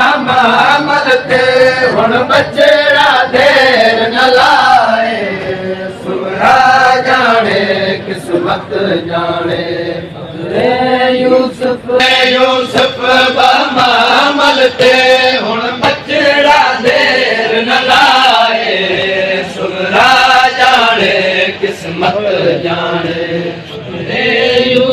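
Noha, a Shia mourning lament, chanted in long phrases by male voices with the crowd singing along. Sharp strikes repeat through it, typical of matam, mourners beating their chests in time.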